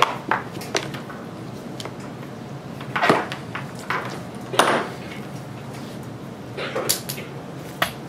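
Camera gear being packed into a foam-lined hard plastic case: scattered clicks and knocks of hard items set into place, with a few longer scraping, rustling handling noises, the loudest about three seconds and four and a half seconds in, and cables being gathered near the end.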